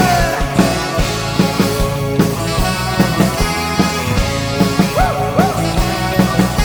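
Rock band playing an instrumental passage of a new-wave rock song, with a steady drum beat under sustained pitched instruments and a couple of short bends in pitch about five seconds in.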